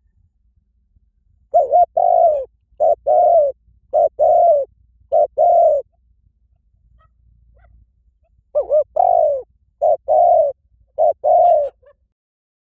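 Spotted dove cooing in two phrases. The first, about one and a half seconds in, has four coos; the second, a few seconds later, has three. Each coo is a short lead-in note run straight into a longer one.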